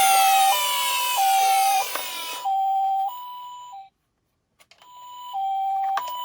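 Two-tone hi-lo ambulance siren alternating between a low and a high note, each held about two-thirds of a second. A descending glide sounds over it for the first two and a half seconds. The siren cuts out for about a second just past the middle, then starts again.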